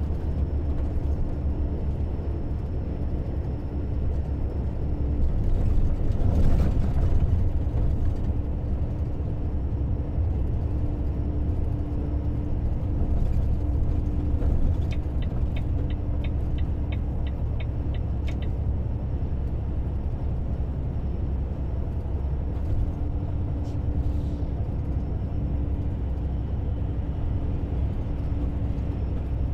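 A car driving, heard from inside: a steady low road and engine rumble that swells briefly about six seconds in, with a run of about ten light, evenly spaced ticks a little past the middle.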